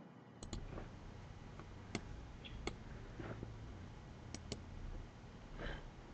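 Computer mouse clicking, single clicks and quick double clicks a second or two apart, over a faint low hum.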